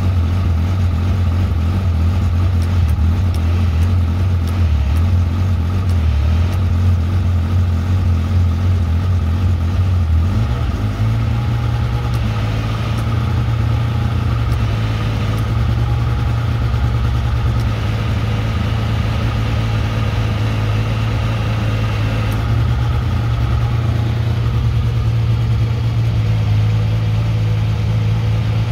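Side-by-side UTV's engine running steadily while its 4,500 lb electric winch pulls under heavy load. The low drone rises slightly in pitch about ten seconds in.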